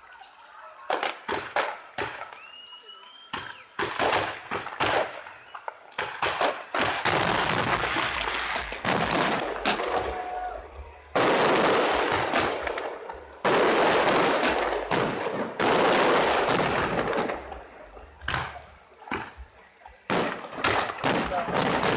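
Fireworks display: many sharp bangs from aerial shells in quick succession, with long crackling stretches in the middle and a short rising whistle about three seconds in.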